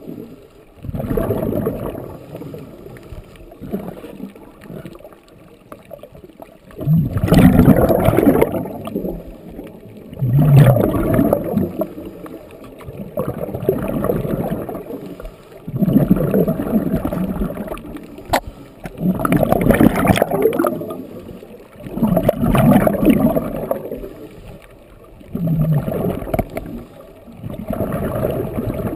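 Scuba diver's regulator breathing heard underwater: bursts of exhaled bubbles gurgling out about every three seconds, with quieter inhalations between.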